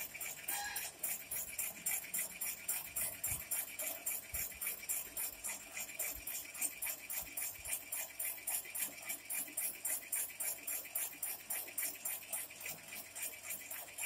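Electric jackfruit slicing machine running as jackfruit bulbs are fed through it: a rapid, even metallic clatter about five times a second.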